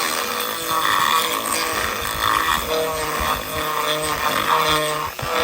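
Dremel rotary tool with a small grinding-wheel bit, running at high speed and grinding around the inside edge of a drilled hole to deburr and enlarge it. Its whine dips and recovers in pitch as the bit bears on the edge and eases off.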